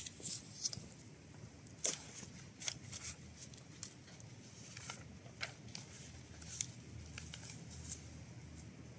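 Faint, irregular rustles and clicks of sheets of paper being handled, over a low steady background hum.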